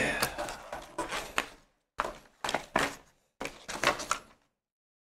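Chocolate bar packaging being handled: the black foil wrapper crinkling and the cardboard sleeve knocking on a wooden table, in short irregular bursts that stop near the end.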